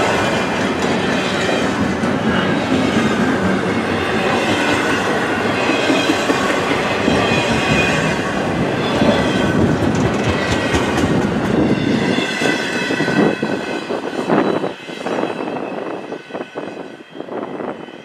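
Double-stack intermodal container cars rolling past close by: wheels clattering over the rail joints, with a high wheel squeal. About twelve seconds in, the last cars go by and the sound thins to scattered clacks as the train moves away.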